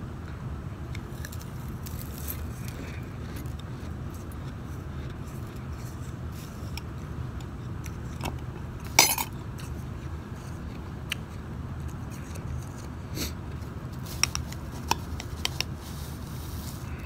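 Metal spoon clinking and scraping in a glass bowl of shaved ice, in scattered clicks. One sharp clink comes about halfway through and a cluster of clinks near the end, over a steady low hum.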